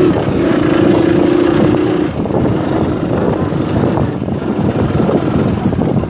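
Small motorcycle engine running steadily while riding a bumpy dirt track; its steady note drops away about two seconds in, leaving a rough, noisy rumble.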